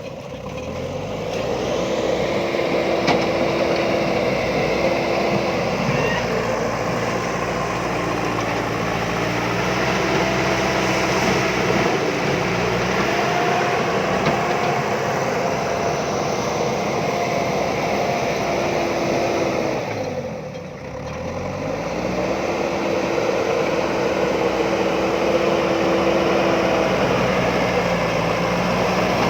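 A JCB backhoe loader's engine running steadily under work. Its revs sag and pick up again right at the start and once more about two-thirds of the way through.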